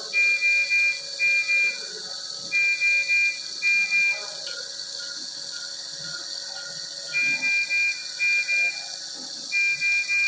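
Medical equipment alarm beeping in a high-priority pattern: groups of five short high beeps, three then two, repeated four times over a steady hiss. The three-plus-two pattern is the standard high-priority alarm, calling for immediate attention.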